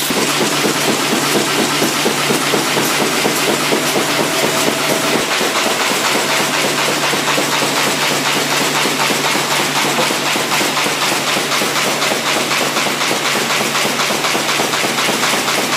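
MBO K8RS combination folding machine running at production speed, sheets being fed and folded: a steady, fast, even mechanical clatter.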